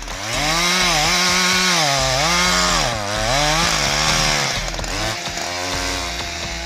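Husqvarna 365 two-stroke chainsaw cutting through a fallen tree trunk. Its engine pitch sags under load in the cut and climbs back several times, with the hiss of the chain in the wood for about the first four seconds.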